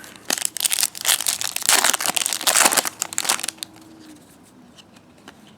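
Trading cards and their foil pack wrapper being handled, crinkling and rustling with quick clicks for about three seconds, then going quiet.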